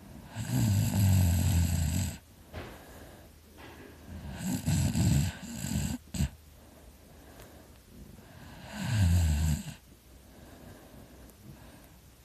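A person snoring heavily in deep sleep: three loud snores about four seconds apart, with a short click just after the second.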